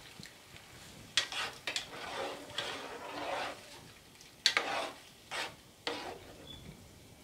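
Long metal spoon scraping and stirring minced meat in a metal pot, in a series of irregular scrapes and knocks against the pot. Under it, a low sizzle of the keema frying as its juices cook off.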